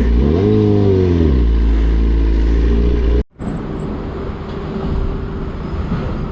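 Motorcycle engine revving up and dropping back over about a second, over loud riding noise. About three seconds in the sound cuts off abruptly and is replaced by quieter steady road and traffic noise.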